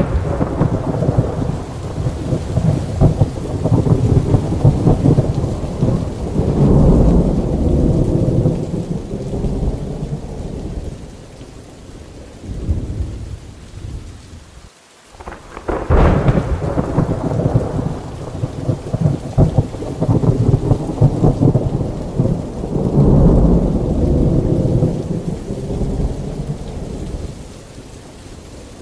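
Thunderstorm: rain falling under long, rolling rumbles of thunder. About halfway through the thunder fades almost away, then a sharp crack sets off a second long roll.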